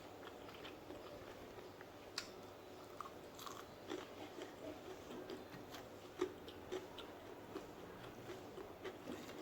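A person chewing and biting food close to the microphone, quiet, with scattered short crunchy clicks every half second or so.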